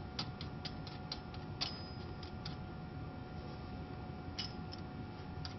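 Small sharp metal clicks as a washer and thumbscrew are fitted by hand onto a slitter blade holder: a quick run of light clicks in the first couple of seconds, then two more near the end, over a steady hum.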